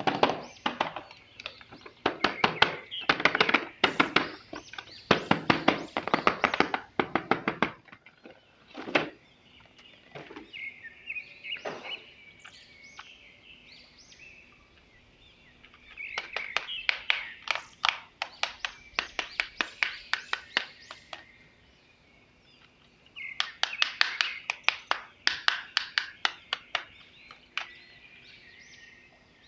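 Plastic action figures and packaging being handled: quick clusters of sharp clicks and knocks, with faint chirping in the quieter stretches between them.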